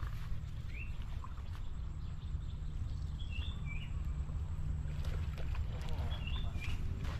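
Wind buffeting the microphone as a steady low rumble, with a few short bird chirps: one about a second in, a small cluster around three seconds and another near the end.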